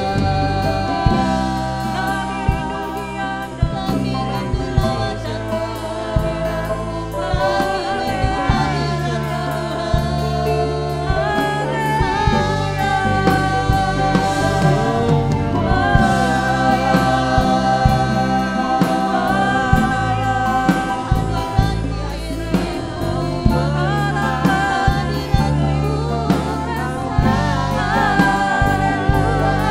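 Gospel worship music: a band with bass and drums playing under voices singing held, sustained notes at a steady tempo.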